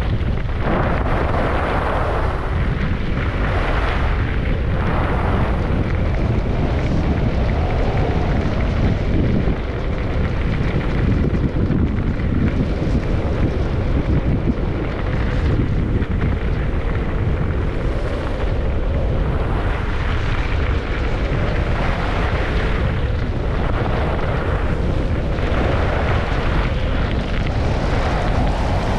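Wind rushing and buffeting over the camera microphone while skiing downhill. Through it, the skis' edges scrape over the snow in swells every second or two as the skier turns.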